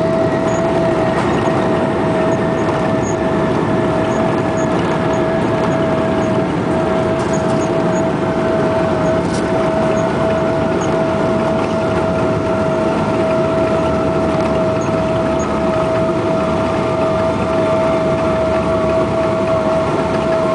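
Boeing 777's GE90 engines and airflow heard inside the cabin over the wing during the landing rollout: a loud, steady roar with one steady whine in it and a fainter, higher whine that falls slowly in pitch.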